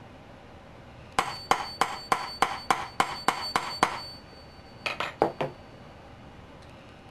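Small hammer tapping a metal axle-driver tool to drive the last axle of a pinewood derby car into its wooden body. About ten even taps come at roughly three a second, each with a bright metallic ring, then after a short pause four quicker, lighter taps.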